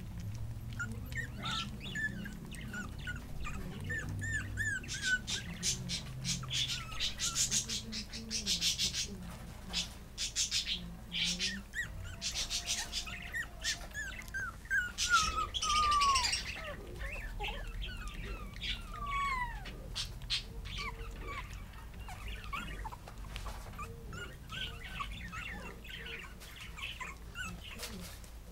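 Three-week-old Pomeranian puppies squeaking and whimpering in short high calls, several falling in pitch, with bursts of rapid clicking. The loudest moment, about halfway through, is a longer whine that slides down in pitch.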